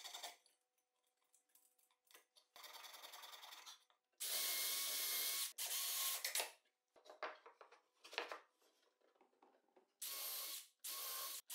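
Cordless drill/driver running in several short bursts with a steady motor whine, driving screws into a plywood frame. A few brief faint sounds come between the bursts.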